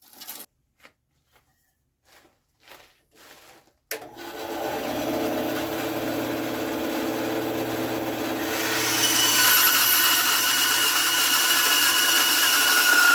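A few short handling sounds, then about four seconds in a shop power tool starts and runs steadily, working on a knife. About halfway through, a higher whine joins the sound.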